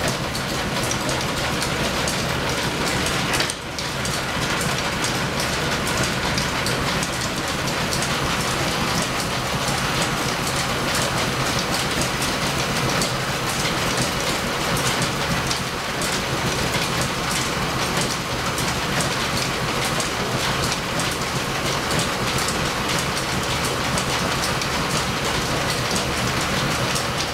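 Antique flat-belt-driven lathe running, a large disc spinning in its four-jaw chuck: a steady mechanical whirr and clatter with fast fine ticking, briefly dipping about three and a half seconds in.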